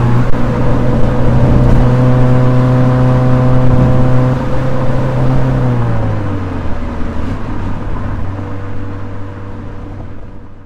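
Toyota 86's flat-four engine running at steady revs while driving, then settling to a lower steady pitch about halfway through as the revs drop. The sound fades out near the end.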